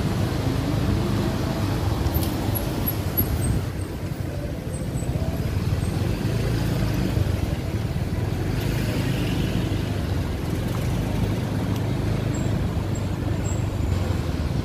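Steady low rumble of running vehicle engines, with a brief hiss about nine seconds in.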